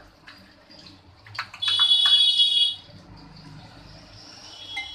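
A loud, steady, high-pitched tone lasting about a second, preceded by a few light taps. A fainter, similar tone sounds near the end.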